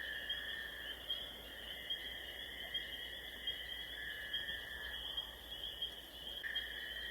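Faint, steady high-pitched chorus of calling animals, two trilling tones held throughout, with the lower one shifting as callers drop in and out.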